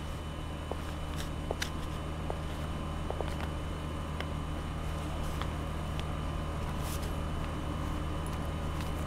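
Train station ambience: a steady low machine hum with a few faint clicks and taps scattered through it.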